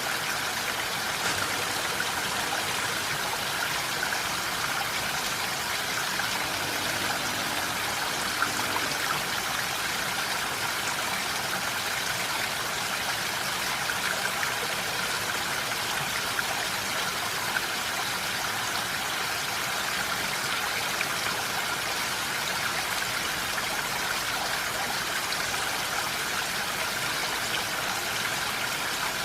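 Steady rain falling, an even hiss with a few brief louder drops.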